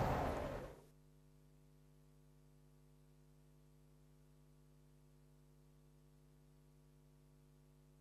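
Music fades out within the first second, leaving a faint, steady electrical mains hum with several overtones.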